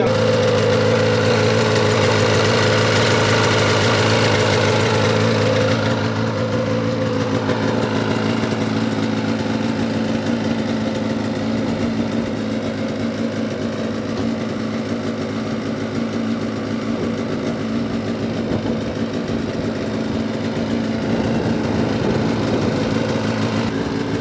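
Turbocharged Polaris RMK 800 snowmobile's two-stroke twin idling steadily on its first start-up of the season after sitting all summer; the sound drops slightly from about six seconds in.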